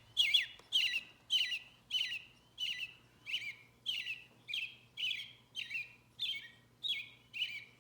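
American robin song played back from a bird-song book's small speaker: a steady run of short, clear caroling phrases, nearly two a second, over a faint electronic hum.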